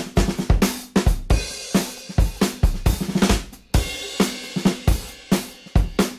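Background music with a steady, driving drum-kit beat: kick drum, snare and cymbals.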